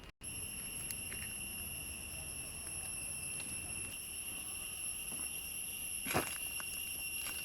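Insects, crickets or cicadas, trilling in one steady high-pitched note. A few faint clicks sound, and a louder knock comes about six seconds in.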